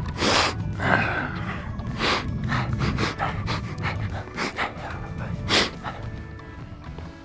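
A person breathing hard right at the microphone: short, noisy breaths about every second, over a low rumble.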